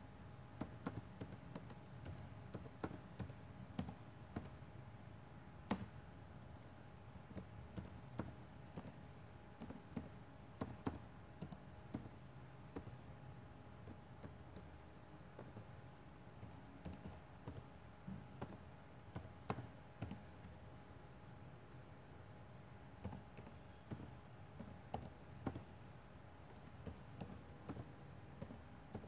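Faint keys being typed on a laptop keyboard, irregular clicks coming in short runs with brief pauses between.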